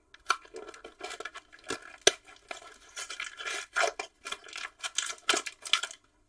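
Trading-card pack wrapper crinkling and tearing as it is opened by hand, in an irregular string of crackles and rustles, with one sharp click about two seconds in.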